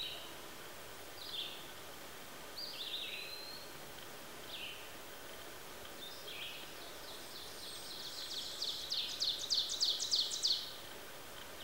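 Forest songbirds singing: short, high chirped calls every second or so, then a long song of rapid, repeated high notes that grows louder from about seven seconds in and stops shortly before the end.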